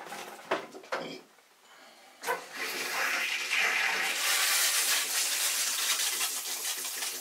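A few light knocks from handling the shower fittings, then a little over two seconds in the shower head starts spraying water in a steady hiss. The shower runs again after its lime-scaled mixer control has been cleaned and greased.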